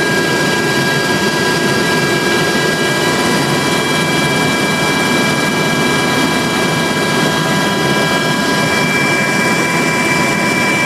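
Helicopter cabin noise in flight: a loud, steady drone with several steady high whining tones over it that hold unchanged throughout.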